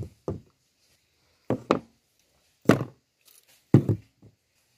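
A paint can and tools (a roll of tape, a wire brush, a tube of silicone) set down one by one on a wooden table: a string of about seven short knocks and thunks with quiet gaps between them.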